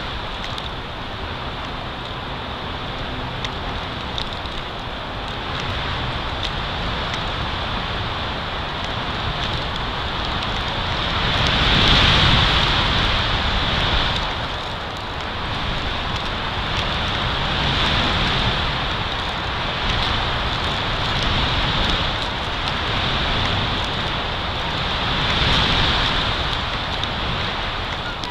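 Wind rushing through the pines and buffeting the microphone, a steady hiss that swells and eases in gusts, loudest about twelve seconds in.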